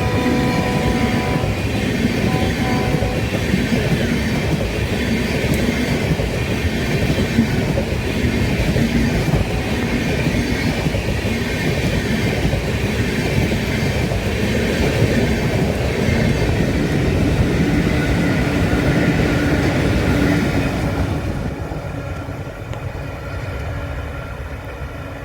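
Passenger coaches of an express train rolling past, wheels clattering over the rail joints, with a short horn note in the first seconds. The noise drops off about 21 seconds in as the end of the train goes by.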